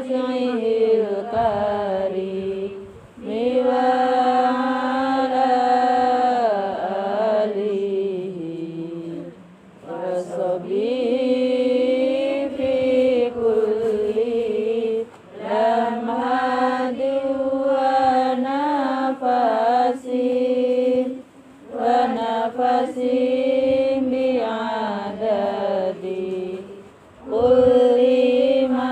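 Islamic devotional chanting: a melodic vocal line sung in long held phrases of a few seconds each, with a short pause for breath between phrases.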